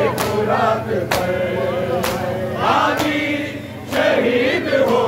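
A group of men chanting a noha in chorus, with sharp strikes in unison about once a second that keep the rhythm: the mourners beating their chests in matam.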